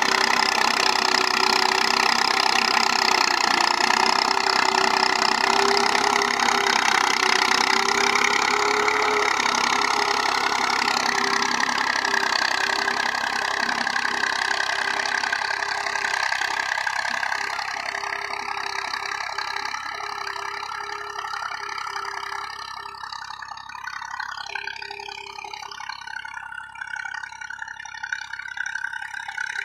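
Diesel engine of a 1984-model Massey Ferguson tractor running steadily under load as it pulls an eleven-tine cultivator through tilled soil. It is loud at first, then fades over the second half as the tractor moves away.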